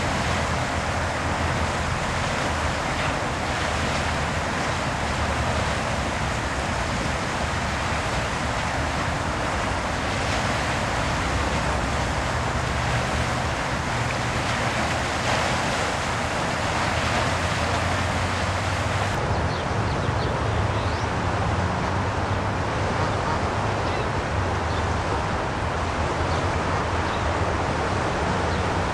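Steady rushing noise of river water and wind across the microphone, even in level throughout.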